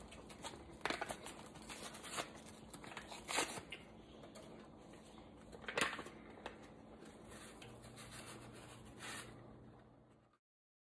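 Faint crinkling and tearing of a taco seasoning packet being opened and handled, with scattered small ticks, the sharpest a little past the middle. It cuts off abruptly near the end.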